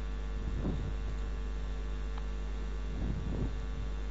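Steady electrical hum with a faint hiss: the background noise of the narration microphone between sentences.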